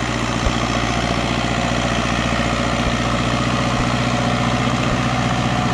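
Valtra BM110 tractor's diesel engine running steadily under load while pulling a disc harrow, its even engine note holding constant.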